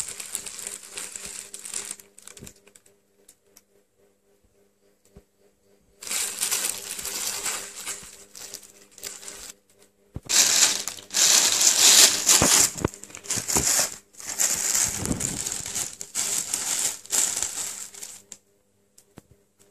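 Thin plastic carrier bag crinkling and rustling as cats wriggle and paw inside it. It comes in bursts: a short one at the start, a pause of a few seconds, then long loud bouts with a brief break in the middle that stop shortly before the end.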